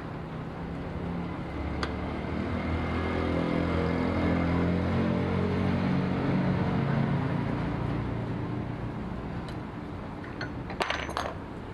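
An engine's steady low hum grows louder over several seconds, then fades away. A few sharp clicks come near the end.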